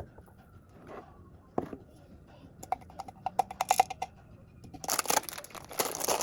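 Handling noises at close range: scattered clicks and taps, a quick run of them about three seconds in, then a crinkling rustle starting about five seconds in.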